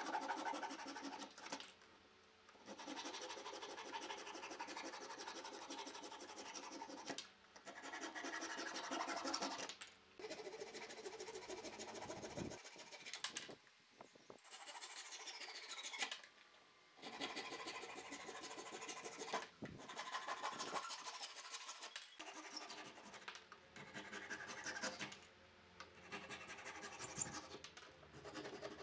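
Japanese-style handsaw laid flat against wooden slats, flush-cutting protruding wooden pegs. About ten runs of quick rasping saw strokes, each a few seconds long, broken by short pauses as the saw moves from one peg to the next.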